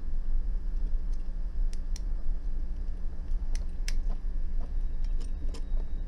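Handling of a Hikari HK915 desoldering gun: a few scattered sharp plastic clicks as parts of the gun are pressed and fitted, over a steady low hum.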